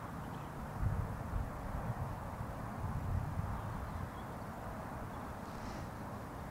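Wind buffeting the microphone: a steady low rumble with a few stronger gusts in the first half.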